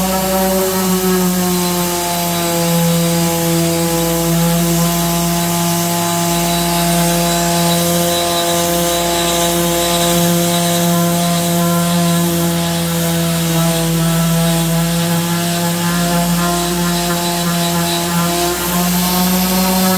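Bosch Professional random orbital sander running steadily with a hum, its pad rubbing across a pine shelf to sand off the old finish. The pitch dips slightly in the first few seconds.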